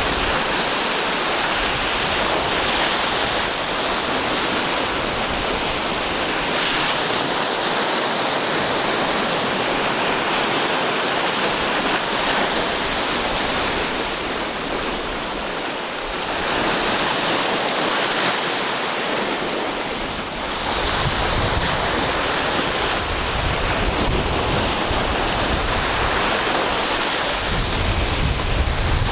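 Ocean surf: waves breaking and washing in a steady rush that swells and eases slowly. Wind buffets the microphone with a low rumble for several seconds near the end.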